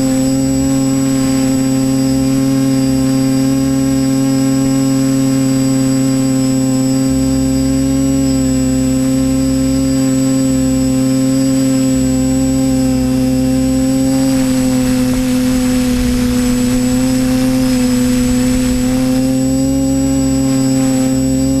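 TBS Discovery Pro quadcopter's electric motors and propellers running in flight, heard from on board. It is a loud, steady buzzing whine with a strong low tone and several higher ones. The pitch dips slightly about two-thirds of the way through, then rises back.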